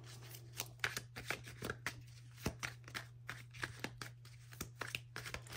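A deck of cards being shuffled and handled by hand: a run of irregular light clicks and snaps, over a steady low hum.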